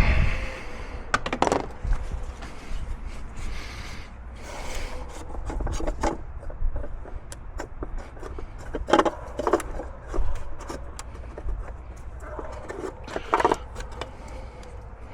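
Hand tools working the oil filter housing cap of a BMW B58 engine loose: irregular clicks, knocks and short scraping and rubbing sounds.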